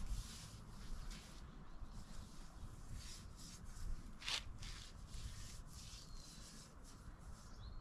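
Faint shuffling and rustling of someone moving about at a machine, with one sharper click about four seconds in, over a low rumble.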